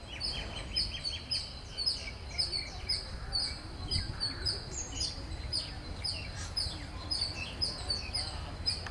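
Birds chirping in a steady, rapid series of short high calls, two or three a second, over a low background rumble.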